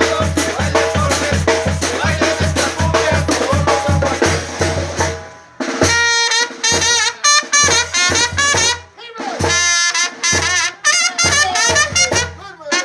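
Mexican banda brass band playing: a steady beat of tuba-like bass notes and drums, about two to three a second, fades out about five seconds in. Trumpets and other brass then play short phrases with bending notes and brief breaks.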